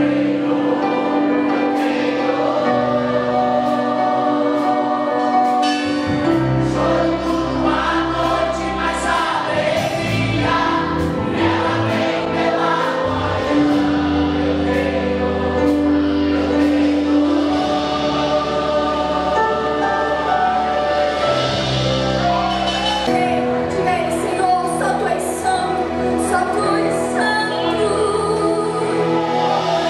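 A small mixed choir of men and women sings a gospel hymn over instrumental accompaniment with steady held bass notes. About 23 seconds in, the music changes abruptly to a different song.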